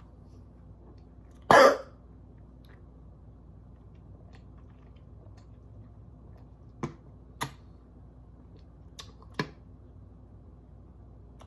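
A single short, loud cough, followed later by a few faint clicks and taps.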